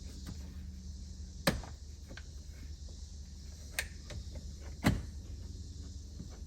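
Sharp plastic clicks and knocks as the Toyota Highlander's A-pillar trim retainer clip is pried at: three distinct snaps, about a second and a half in, near four seconds and near five seconds, over a steady low hum.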